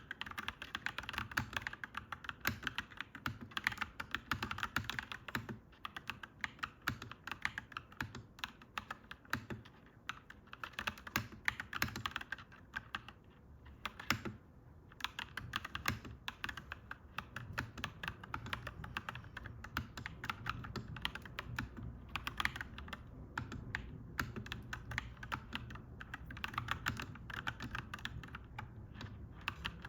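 Clacky mechanical keyboard being typed on in fast, continuous runs of keystrokes, with a brief pause about halfway through.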